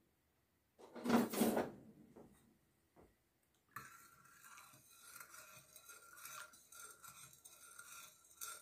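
Metal ladle clinking and scraping against a clear glass bowl of salt brine as it is stirred: one louder knock or scrape about a second in, then steady scraping with a faint glassy ring from about four seconds on.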